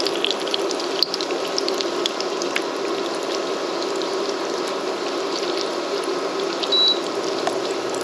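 Yeast donuts frying in hot oil: a steady sizzle with scattered crackles and pops. A brief high squeak about seven seconds in.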